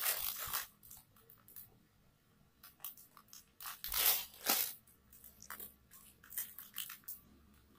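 Plastic packaging of jelly cups being handled: scattered rustles and crinkles, with the loudest ones right at the start and about four seconds in.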